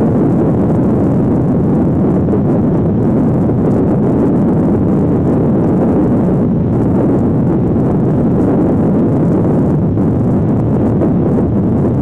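Wind buffeting the microphone: a loud, steady rumble with no breaks.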